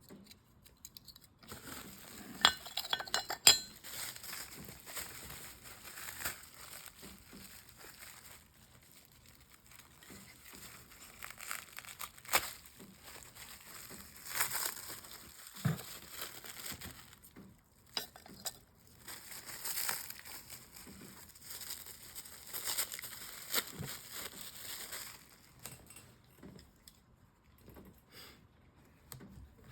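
Packing material crinkling as stone slabs are unwrapped and handled, with hard clinks of stone against stone, a cluster of sharp clinks about two to four seconds in.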